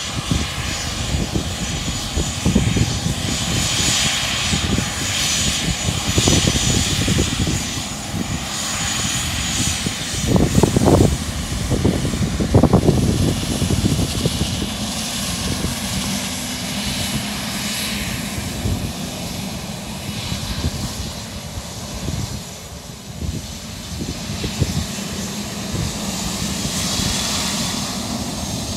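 Business jet taxiing on a runway, its turbofan engines running at low taxi power: a steady whine over a low rumble. The rumble swells briefly twice near the middle.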